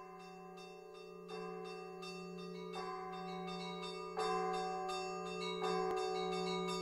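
Church bells ringing: quick, even strokes of small bells about four a second, with a heavier bell struck about every second and a half, and the tones ringing on under each other. The ringing grows steadily louder, as if fading in.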